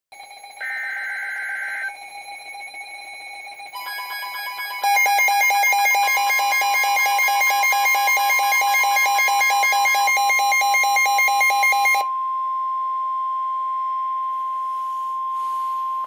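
Midland weather alert radio sounding a severe thunderstorm warning: its pulsing alarm beep, with a short warbling burst of the broadcast's SAME digital header near the start. From about four seconds in, the steady long warning tone of NOAA Weather Radio joins it, and that tone carries on alone after the beeping stops about three-quarters of the way through.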